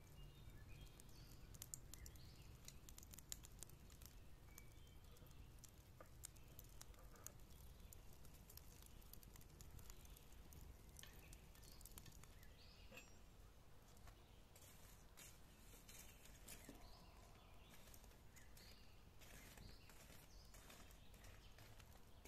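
Near silence: the faint crackle and ticking of a charcoal fire, with the ticks coming thicker near the end as the coals are stirred with metal tongs.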